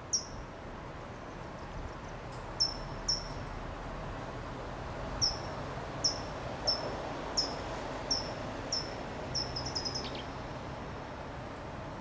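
California towhee giving sharp, high "tsip" call notes: about a dozen single chips, coming every half second to second later on, then a quick run of several near the end.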